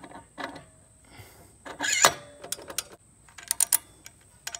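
Metal parts of a go-kart torque converter's driven pulley being handled and fitted back together: irregular clicks and clinks, with a louder scrape ending in a sharp clank about two seconds in.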